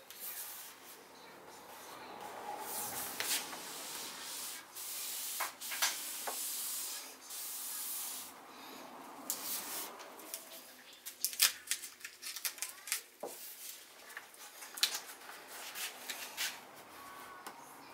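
Tape being peeled and rubbed down by hand, a rasping hiss for several seconds, then scattered sharp clicks and ticks as the tape and plastic parts are handled.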